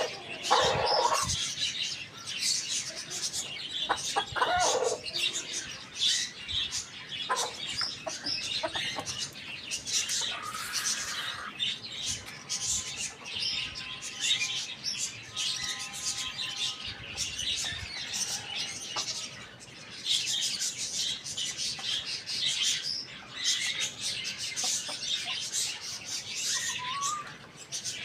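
Chickens feeding outdoors: dense, continuous high chirping, with a few lower, louder chicken calls about a second in and again around four to five seconds in.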